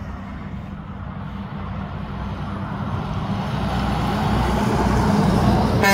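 Diesel engine of a tanker semi-truck approaching, a steady low drone growing louder; a brief sharp burst of noise near the end.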